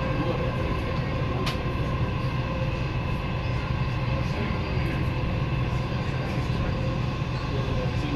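Dubai Metro train running at speed on an elevated track, heard from inside the carriage: a steady low rumble with faint steady whining tones over it, and a single sharp click about a second and a half in.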